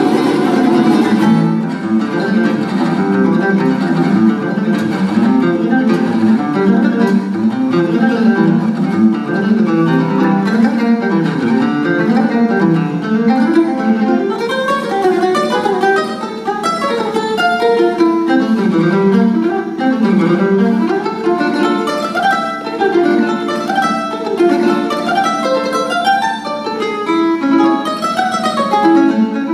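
Solo classical guitar played fingerstyle: a continuous stream of quick plucked notes running up and down in pitch.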